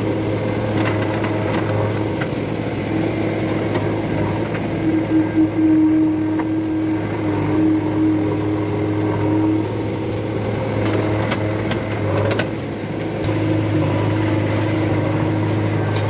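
JCB 3DX backhoe loader's diesel engine running steadily under work as it digs and loads soil, with scattered short clanks and knocks from the bucket and arm.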